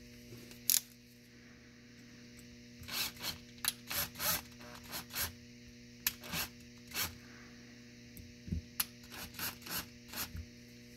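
Screws being turned down with a drill-driver through the extender block of a thermoelectric cooler's Peltier module into the aluminium heat sink: a sharp click under a second in, then a string of short, irregular rasping turns from about three seconds in. A steady mains hum runs underneath.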